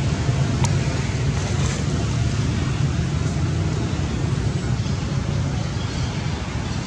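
Steady low rumble under an even hiss of outdoor background noise, with one faint click less than a second in.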